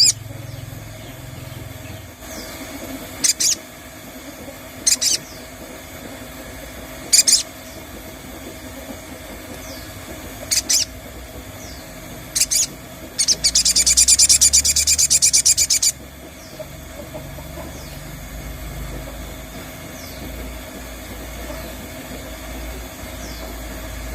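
Sogon bird calls used as a lure: single sharp, high call notes every couple of seconds, then a fast, loud trill lasting about two and a half seconds just past the middle, over a steady low background hum.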